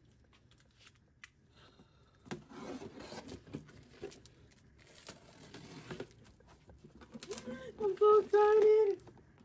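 Box cutter slicing the packing tape on a cardboard carton, with scraping and crinkling of the cardboard. Near the end come three short, loud hummed notes from a voice.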